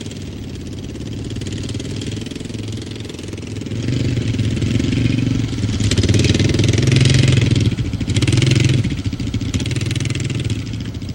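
A small vehicle's engine running under way, its note swelling louder through the middle and easing off near the end.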